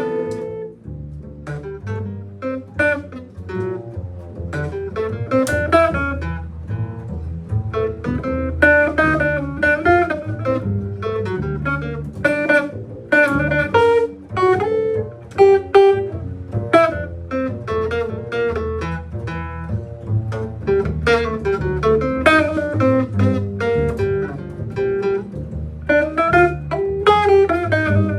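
A band rehearsing an instrumental passage: guitar playing a melodic run of plucked notes over a walking bass line.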